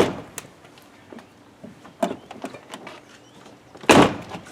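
Door latch of a 1995–2000 Chevy GMT400 pickup being worked with the newly fitted inside door handle, as a check that the latch works. The latch and door clunk sharply at the start, again about two seconds in, and loudest near the end, with light clicks between.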